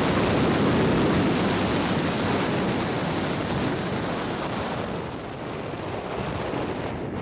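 Wind rushing over a helmet camera's microphone as a skydiver's parachute canopy glides in low to land, the rush easing off gradually as the canopy slows.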